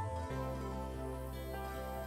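Soft background music: gentle sustained notes over a held low bass tone.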